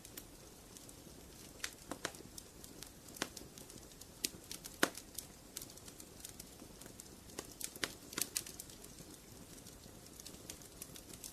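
Wood fire burning in a fireplace, crackling with irregular sharp pops and snaps over a low steady hiss; the loudest pop comes about halfway through.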